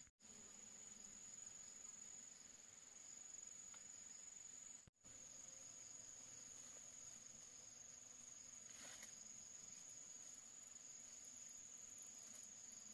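Faint, steady high-pitched trilling of insects, unbroken except for two brief dropouts where the sound cuts out, about a tenth of a second in and about five seconds in.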